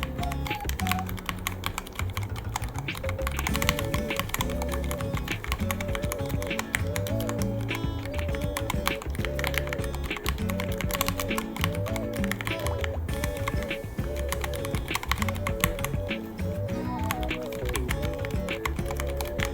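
Continuous fast typing on a Ducky One 3 mechanical keyboard, keys clacking many times a second, over background music with a repeating melody.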